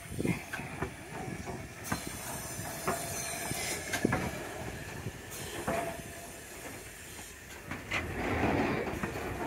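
BR Standard Class 5 steam locomotive 73082 rolling slowly past at close range, with irregular clanks and knocks from its wheels and motion over the rails. A thin wheel squeal comes and goes in the middle, and a steam hiss rises near the end.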